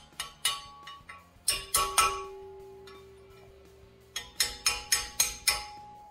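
Hammer striking a chisel against a welded steel bracket held in a bench vise, knocking weld-spatter nubs out of its inside corners. The sharp metallic taps come in three runs: a couple at the start, three about a second and a half in, and a quick run of six or seven near the end. The steel rings after each one.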